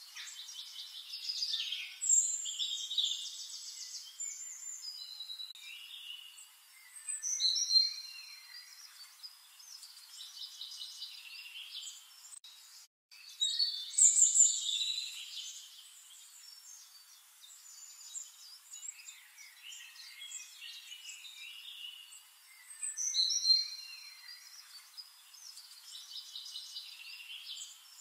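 Several songbirds singing, with rapid trills and clear whistled phrases. The song breaks off for a moment about halfway through.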